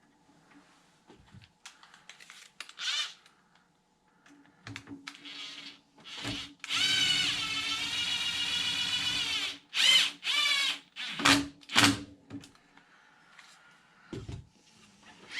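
Cordless power driver spinning screws in: one run of about three seconds with a steady motor whine, then four short bursts as it snugs the screws down.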